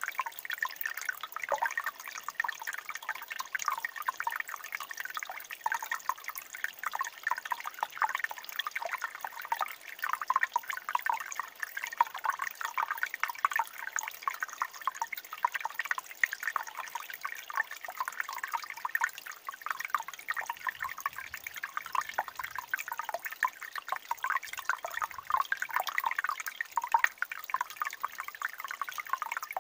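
Water trickling and dripping among rocks into a pool: a dense, continuous patter of small drips and gurgles.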